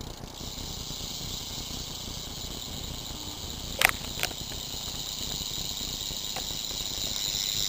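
Rear wheel of a BMX bike spinning, giving a steady high-pitched buzz with two sharp clicks about half a second apart midway.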